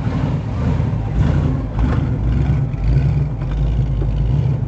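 A vehicle engine running with a low, uneven rumble.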